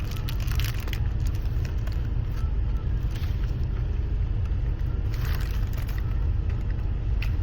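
A person eating a burger, with soft chewing and mouth clicks, over a steady low rumble.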